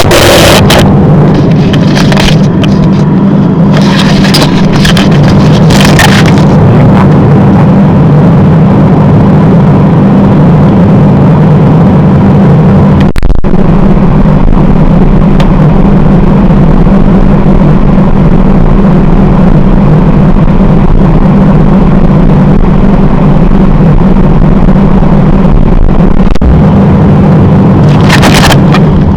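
Household freezer running, heard from inside the closed compartment: a loud, steady low hum from its fan and compressor, with a few crackling knocks in the first several seconds.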